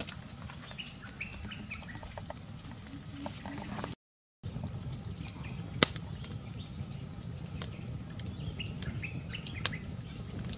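Wood campfire crackling with scattered sharp pops over a steady high hiss, while a bird chirps a short run of notes twice. The sound drops out briefly about four seconds in.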